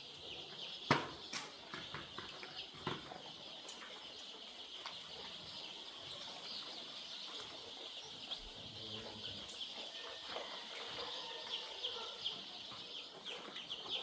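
A crowd of young chicks peeping without pause, many short high falling cheeps overlapping. A couple of sharp knocks come about one and three seconds in.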